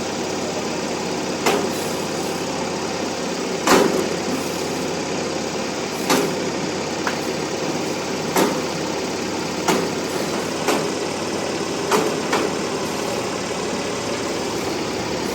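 Engine-driven machine running steadily, with sharp knocks or clacks every one to two seconds. The loudest knocks come about four seconds in and near the end.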